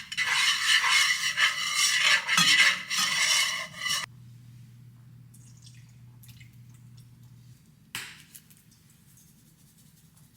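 Loud rustling and scraping handling noise for about four seconds. It stops suddenly, leaving a faint low hum with one sharp knock about eight seconds in.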